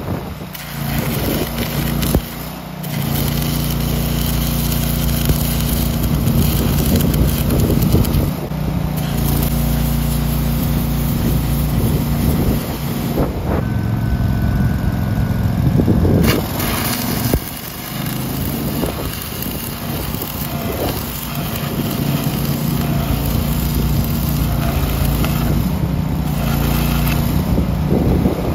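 Stick-welding arc crackling and hissing as a 6010 rod run hot, at about 230 amps, melts and blows out an old weld to cut a trailer jack free. The arc has a couple of short breaks, and an engine runs steadily underneath.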